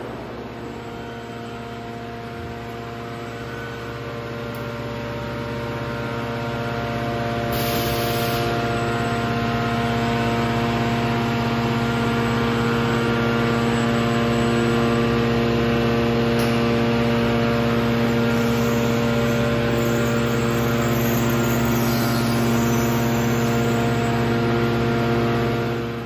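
Steady electric-motor and hydraulic hum of an automatic metal-baling and wrapping line, with several steady tones, swelling over the first several seconds and then holding. A brief hiss about seven seconds in.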